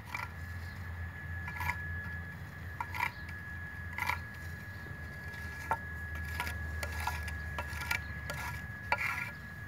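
Metal putty knife scraping and tapping on a stone tile as it spreads adhesive paste, a short sharp scrape or click about once a second.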